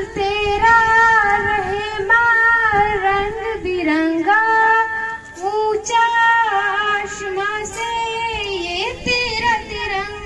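A girl singing solo without accompaniment, a slow melody of long held, wavering notes.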